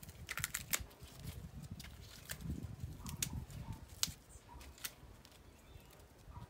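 An ear of fresh corn being shucked by hand: husk leaves and silk tearing and snapping as they are pulled off. A cluster of crisp crackles comes in the first second, then scattered single snaps.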